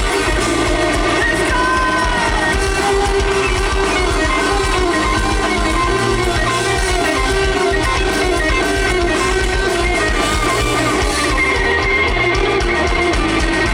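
Live rock band playing loudly, with electric guitar, drums and bass, recorded from the crowd through a phone microphone.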